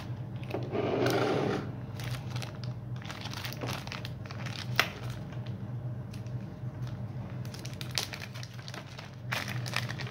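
Small plastic zip-lock bag crinkling and rustling as it is handled and opened, with scattered sharp clicks, the loudest a little under five seconds in.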